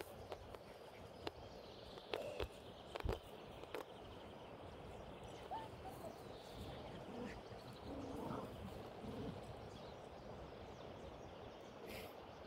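Faint outdoor ambience with a few short bird chirps, and several sharp clicks and knocks about two to four seconds in, the loudest near three seconds.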